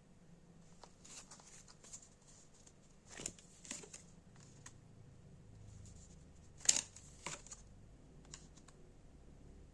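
Tarot cards being handled and laid out on a table: scattered soft clicks and taps, the sharpest about two-thirds of the way through.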